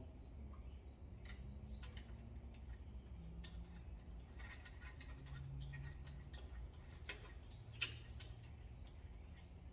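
Faint, irregular light clicks and taps of a headset press tool being handled and fitted to a mountain bike head tube, with one sharper click about eight seconds in, over a low steady hum.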